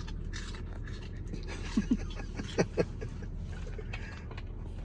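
A large dog panting close up, quick breathy strokes one after another, with two brief pitched squeaks a little past the middle.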